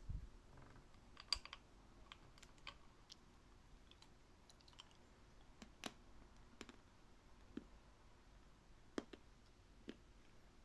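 Faint, irregular sharp clicks and small crunches of chewing, about a dozen spread unevenly over quiet room tone.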